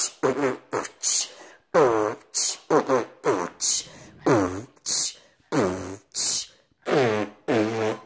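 A person beatboxing a steady beat: short hissing 'tss' sounds alternate with low, buzzy vocal notes that drop in pitch, about two beats a second.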